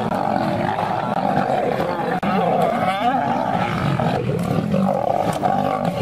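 Lions growling and snarling in a close fight between two males, with a lioness joining in. The growling is loud and unbroken, with no pauses.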